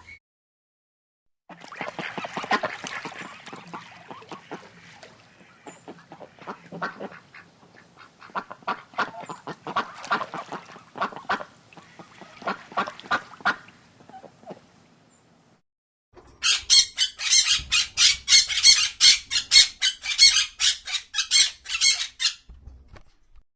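Waterfowl calling: a flock of many overlapping honks and quacks. After a short break comes a loud, rapid run of calls, about five a second, that stops suddenly.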